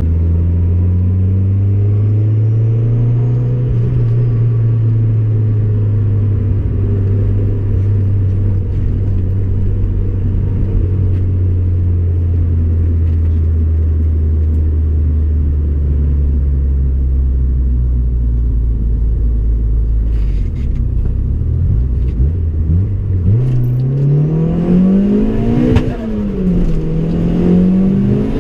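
Turbocharged Honda Civic engine running under way, its pitch sinking slowly for a long stretch. Near the end it revs up, the pitch drops sharply once, and then it climbs again, like a gear change during acceleration.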